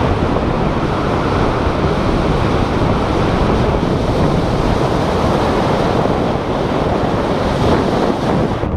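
Loud, steady wind noise from air rushing over the camera's microphone during a tandem skydive descent.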